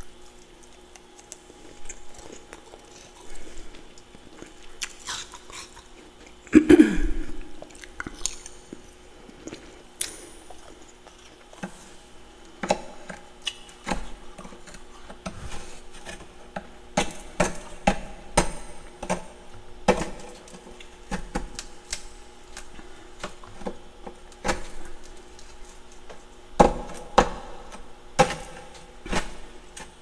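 Metal utensil scraping and chipping thick humidifier-grown frost off the walls of a mini freezer: irregular crunches and clicks, with one louder scrape that rings briefly about seven seconds in. A faint steady hum runs underneath.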